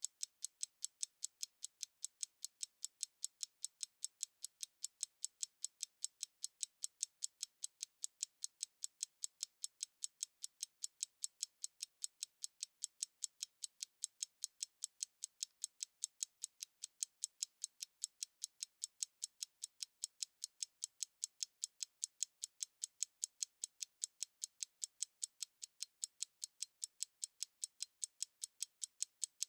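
Analog stopwatch ticking fast and evenly, several crisp, high-pitched ticks a second with no bass.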